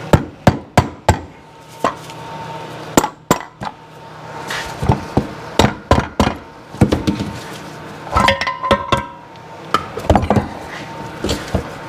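Mallet blows on the aluminium crankcase of a Sea-Doo 951 DI two-stroke engine, driving the crankshaft loose: a string of sharp knocks at irregular intervals. About eight seconds in there is a short run of ringing metallic clinks as the loosened crankshaft is worked free, then a few lighter knocks.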